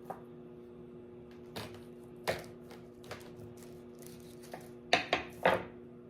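Kitchen utensils clinking and knocking against dishes in a few scattered strikes, three of them close together near the end, over a steady low hum.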